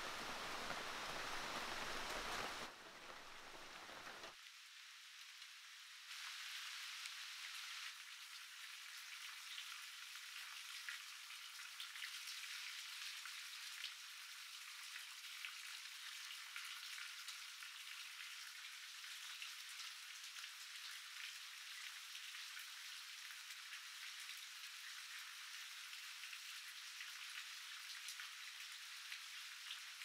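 Steady rain pattering and hissing. The first few seconds are louder and fuller-sounding, then the sound settles into an even, lighter hiss.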